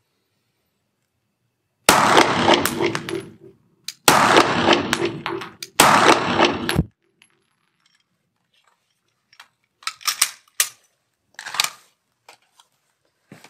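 Three pistol shots from a Glock about two seconds apart, each followed by a long echo off the walls of an indoor range. Then a few light metallic clicks of the gun being handled.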